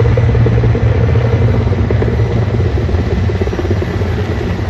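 Formation of Mi-17 V5 military helicopters flying by: a loud, steady rotor chop over a deep engine drone, easing slightly after the first second.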